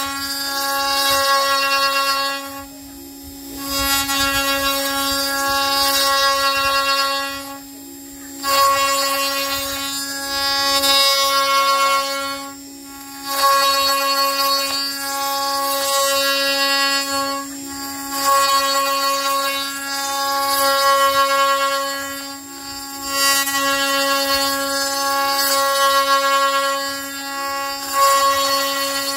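A power spindle with a straight cutting bit running with a steady whine while it mills pine beside a tenon on a table leg. The cutting noise drops off briefly about every four to five seconds, as the bit eases out of the wood between passes.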